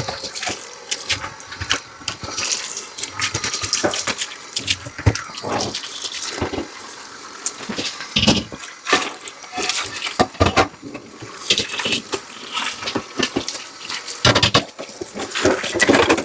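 Dishes being washed in a kitchen sink under running tap water, with water splashing and frequent irregular knocks and clatters of dishes being handled.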